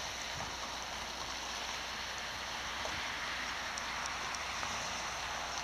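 Steady, even outdoor hiss with no distinct events, only a few faint ticks.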